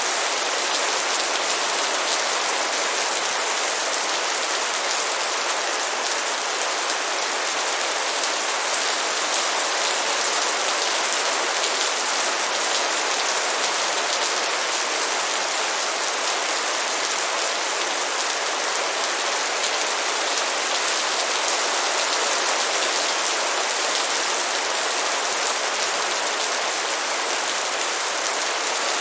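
Steady rain falling: an even hiss of many small drops, unchanging throughout.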